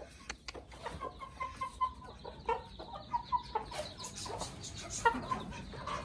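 Chickens clucking: a run of short, quickly repeated clucks, with a few more near the end.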